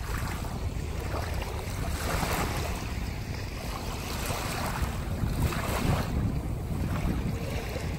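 Small waves lapping and washing up onto a sandy beach in several surges, with wind buffeting the microphone in a steady low rumble.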